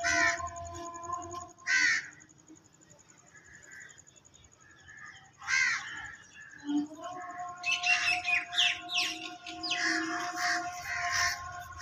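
Crows cawing: single calls about three times, then a busy run of overlapping caws and chirps through the second half.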